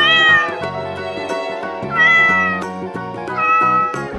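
A cat meowing three times, each meow about half a second long, over background music with a steady beat.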